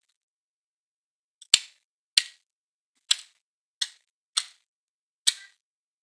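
Black woodpecker hammering its bill into a tree trunk: six single, sharp knocks at an uneven pace, about one every second or less, the slow, separate blows of a woodpecker chiselling into wood to feed rather than a rapid drumming roll.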